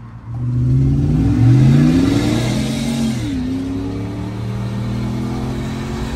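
Supercharged 6.2-litre V8 of a first-generation Ford Roush Raptor accelerating hard from a standstill, heard from inside the cab. The revs climb, drop back at an upshift about a second and a half in, climb again and drop at a second upshift about three seconds in, then settle to a steady cruise.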